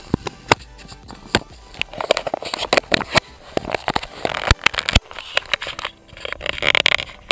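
Irregular crackling, clicking and scraping on a GoPro's microphone, with no steady engine note, typical of handling or rubbing noise on the camera.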